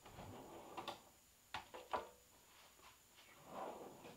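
Faint workbench handling noises: rustling, with a few sharp clicks and knocks about one and two seconds in, as hands move tools and parts around.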